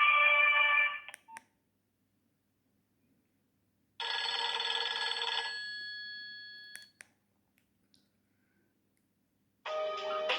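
Nokia 2610 ringtones playing through the phone's small speaker. One tune ends about a second in, and after a pause a short ringing phrase sounds and fades away over a couple of seconds. Near the end the next ringtone begins.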